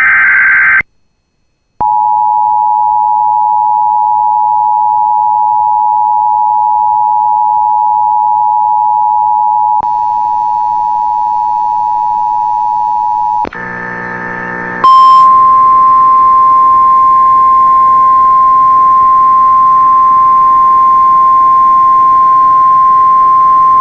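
Emergency Alert System broadcast tones. A short buzzy burst of SAME header data ends a second in, then the two-tone EAS attention signal sounds steadily for about twelve seconds. After a brief buzz it gives way to the single steady-pitched NOAA Weather Radio warning alarm tone, heralding a severe thunderstorm warning.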